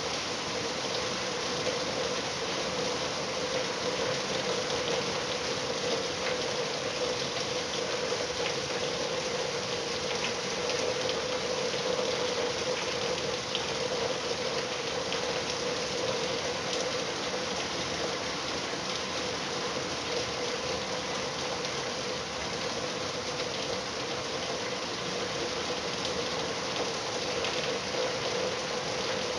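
Steady rain falling, a continuous hiss of drops with faint patters, over a steady low hum that holds one pitch throughout.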